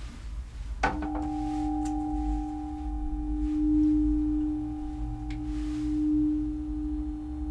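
Soundtrack music of sustained pure tones: a low tone and a higher one come in together with a light click about a second in and hold steadily, swelling twice, over a low hum.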